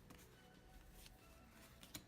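Near silence: faint background music, with one soft click near the end.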